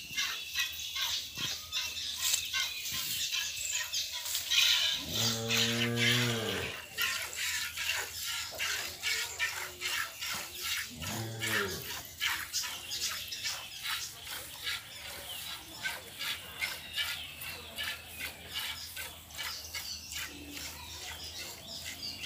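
A cow mooing twice, a long low call about five seconds in and a shorter one about eleven seconds in. Under it run the regular hissing squirts of a cow being hand-milked into a steel bowl.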